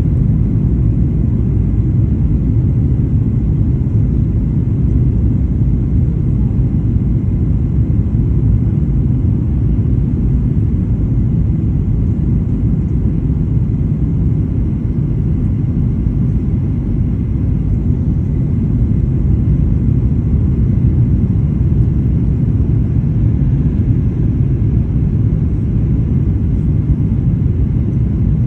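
Steady low rumble inside the cabin of a Boeing 737-800 in flight, heard from a window seat: its CFM56-7B engines and the airflow along the fuselage.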